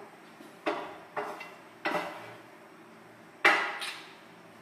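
Cooking utensil knocking against a frying pan on a gas stove: four sharp metallic knocks with a short ring, the loudest about three and a half seconds in.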